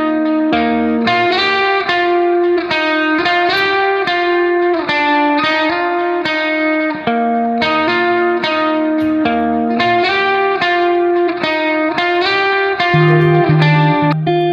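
Background music: a plucked guitar melody of quick, evenly paced notes, with bass notes joining near the end.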